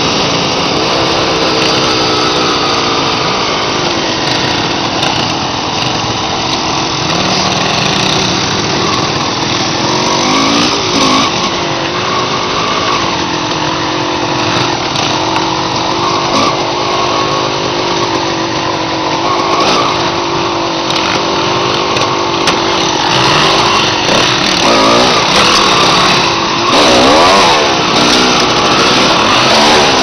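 Kawasaki KX250 dirt bike's two-stroke engine running under way, its pitch rising and falling again and again as the throttle opens and closes.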